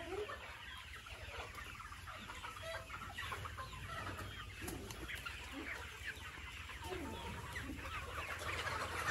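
A flock of free-range local-breed chickens clucking, many short calls overlapping one another without pause.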